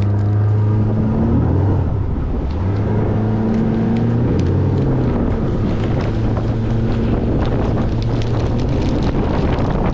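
A boat's motor running steadily underway, its hum shifting a little in pitch in the first few seconds, with wind rushing over the microphone.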